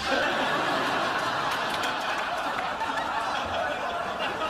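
Sitcom studio audience laughing: one long, even wave of laughter that starts suddenly and holds steady.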